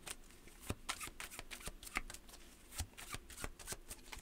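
Tarot deck being shuffled by hand: faint, quick, irregular card flicks and riffles.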